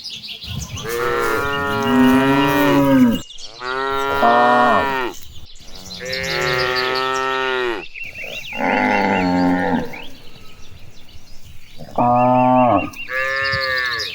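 A herd of cattle mooing repeatedly: about six long, drawn-out moos from different animals, one after another with short pauses between them.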